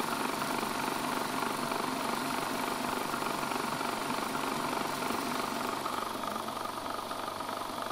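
Food processor motor running steadily, churning pumpkin and bulgur into kibbeh dough as the mixture binds together.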